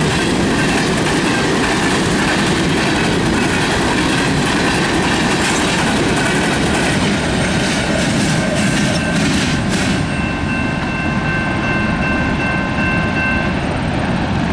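Freight cars of a Canadian National mixed train rolling past at close range: a loud, steady rumble of wheels on rail with a few clicks over the rail joints. From about ten seconds in, a thin, steady, high squeal from the passing cars joins the rumble.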